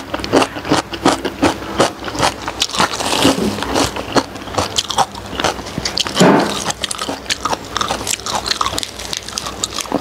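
Close-up wet chewing and mouth smacking of soft steamed pork skin, a rapid run of short clicks, with one louder, longer mouth sound about six seconds in.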